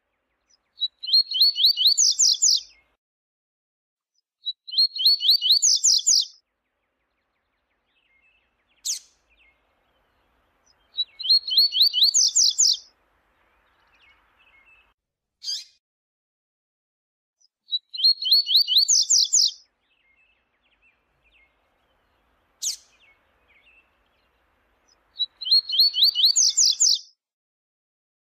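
Double-collared seedeater (coleiro) singing: five songs spaced some six seconds apart, each a fast run of sharp, high notes lasting about two seconds. A single short, sharp note sounds between each of the later songs.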